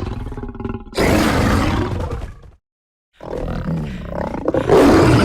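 Jurassic Park dinosaur roar sound effect. A rumbling growl swells into a loud roar about a second in and ends with a break of silence, then a second roar builds to its loudest near the end.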